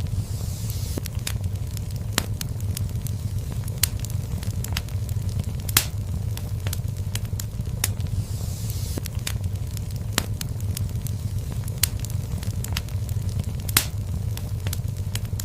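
Wood fire burning in a fireplace: a steady low rumble of flames with frequent irregular crackles and pops, a few sharper pops standing out, and a soft hiss now and then.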